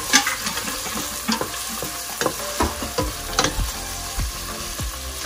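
Whole spices (bay leaf, cardamom, cinnamon) sizzling as they fry in a pot, the first stage of a curry, while a spatula stirs them with repeated sharp clinks and scrapes against the pot.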